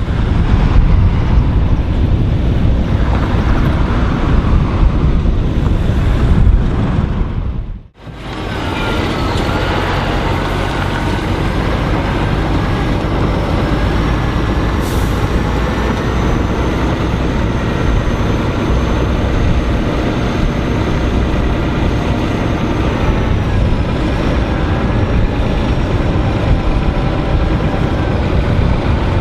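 Heavy diesel machinery running loud and steady: a cold milling machine at work, with its engine and grinding noise. The sound cuts out abruptly about eight seconds in and picks up again straight away.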